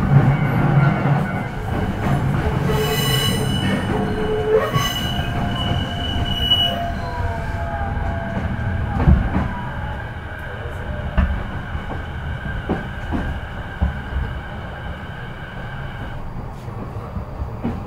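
Inside a JR East E233-5000 series electric train motor car slowing into the terminus: a high whine and squealing over the running noise, then tones falling in pitch as the train slows. Steady tones hold until they cut off about two seconds before the end, with a few single knocks.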